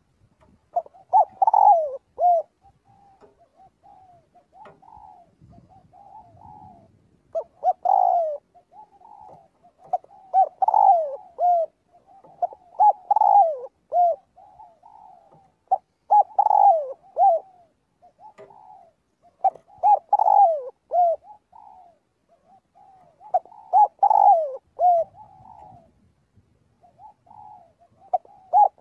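Spotted dove cooing: a loud phrase of a few falling coos every two to four seconds, with fainter cooing between the phrases.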